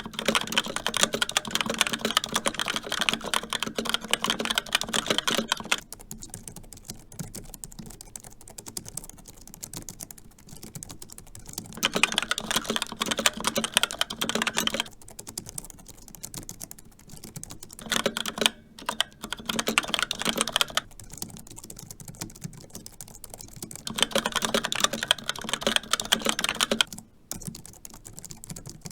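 Steady fast typing on two wireless keyboards, a Razer Pro Type and a Logitech MX Keys, in alternating stretches of a few seconds: louder, brighter clatter switches to quieter, softer key presses and back again, four times over.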